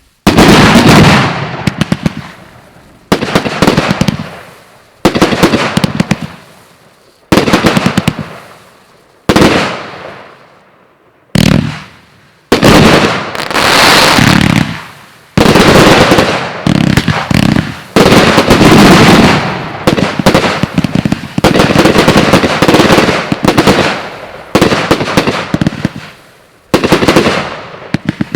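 Hallmark Fireworks Relentless compound cake firing very loud salutes. Each shot is a sudden bang followed by a crackling tail that dies away over a second or two. The shots come about every two seconds at first, then faster and overlapping through the middle.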